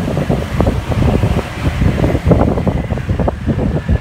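Wind buffeting and rumbling on the microphone of a moving motorbike, in uneven gusts, over the bike's engine and road noise.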